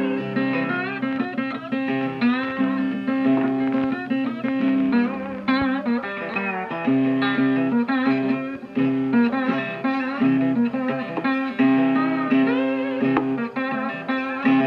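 Background music led by a plucked guitar, a steady run of notes.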